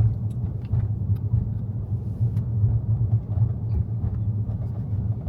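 Low, steady rumble of a car driving, heard from inside the cabin, with a few faint light clicks.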